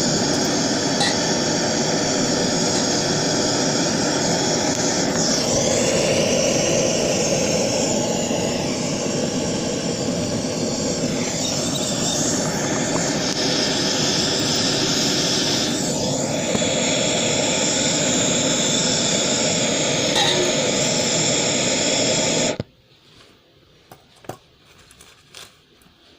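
Propane turbo torch burning with a steady loud rush of flame while heating metal in a crucible. The sound stops abruptly about 22 seconds in, leaving only a few faint clicks.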